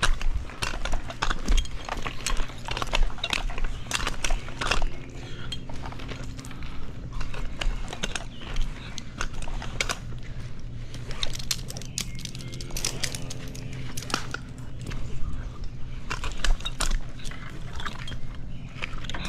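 Tree-climbing gear clinking and scraping against the bark as a climber works his way up a tree trunk on a rope, with irregular sharp clicks and knocks over a steady low hum.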